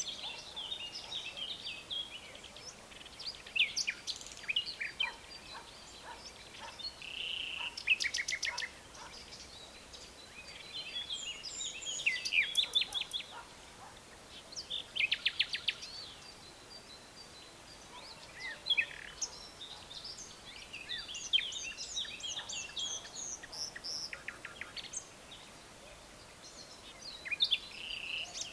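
Several wild birds singing and calling, with short high chirps, whistles and fast rattling trills coming in bursts every few seconds over a faint steady background hiss.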